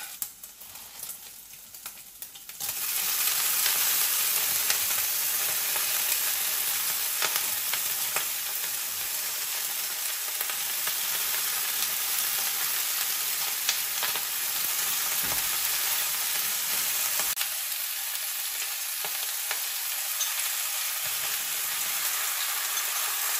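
Food frying in a pan. After a quieter start with a few clicks, a loud steady sizzle begins abruptly about two and a half seconds in and keeps going, with scattered clicks and scrapes of stirring.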